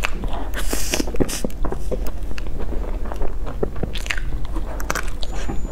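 Close-miked biting and chewing of a crumb-topped cream puff: a crisp crunch of the crust about half a second in, then chewing with small crackles, and more crunches near four and five seconds.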